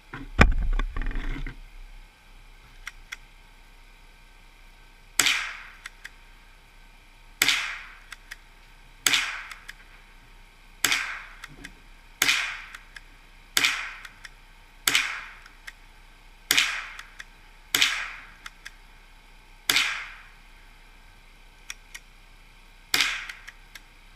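FN Trombone pump-action .22 rimfire rifle firing eleven shots, about one every one to three seconds, each a sharp crack with a short fading echo. Near the start a hand knocks against the microphone with a loud low rumble.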